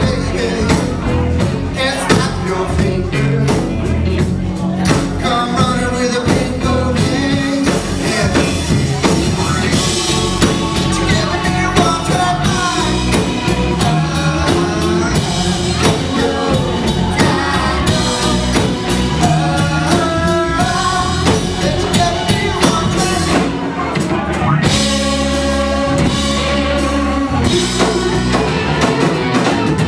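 Live blues-rock band playing: a Fender Stratocaster electric guitar, bass guitar and drum kit, with a male lead vocal singing over them.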